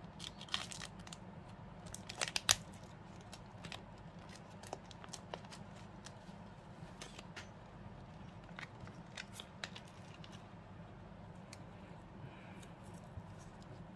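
Thin plastic vacuum-seal bag crinkling and crackling as it is torn open and peeled off a small brass flashlight, with a sharp snap about two and a half seconds in. The crackles come thickest in the first few seconds and then thin out to scattered ones.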